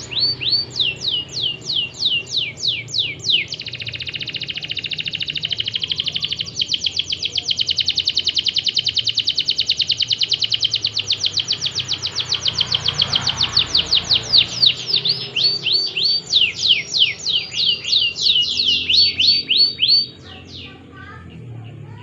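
Domestic canary singing a long song. Phrases of repeated high, downward-sweeping notes, several a second, lead into a very fast rolling trill in the middle, then more sweeping phrases, and the song stops about 20 seconds in.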